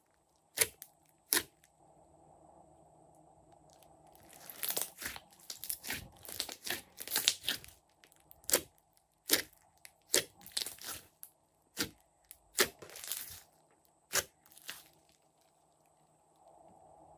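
Glossy slime being pressed and poked by fingers, giving sharp sticky clicks and pops of trapped air. A dense run of crackling comes around the middle, with single pops spaced out before and after.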